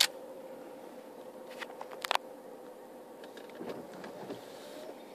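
Sharp clicks from a camera's lightning trigger: one right at the start and a quick double click about two seconds in, over a faint steady hum.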